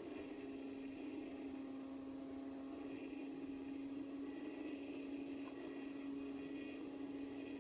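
Electric motor and propeller of a HobbyZone Glasair RC plane, heard from on board in flight, running at a steady throttle as one unchanging hum over a soft hiss of rushing air.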